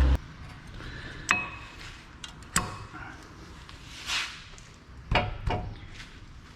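Metal brake pad and its clips clinking against the steel caliper bracket as the pad is slid into place: a few sharp metallic clicks, the first ringing briefly, and a short scrape in the middle.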